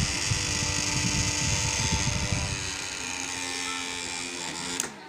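Small motor of a homemade table fan running steadily with a buzzing whine and a rough fluttering rumble from the spinning blades. Near the end there is a click and the pitch falls as the motor is switched off and spins down.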